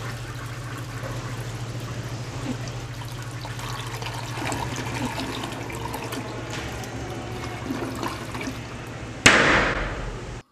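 A toilet flushing, water rushing and trickling, over a steady low hum. About nine seconds in, a sudden loud rush of noise that fades over about a second.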